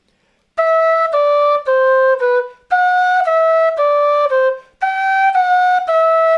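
Quena (Andean notched end-blown flute) playing a descending scale exercise: three groups of four clear, separately attacked notes, each group stepping down and each starting one step higher than the last, with short breath gaps between groups.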